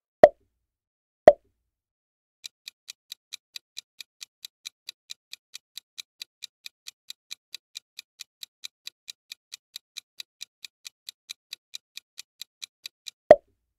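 Quiz countdown-timer sound effects: two short, sharp sounds about a second apart, then a steady clock-like ticking at about four ticks a second for some ten seconds, ended by another short, sharp sound as the timer reaches zero near the end.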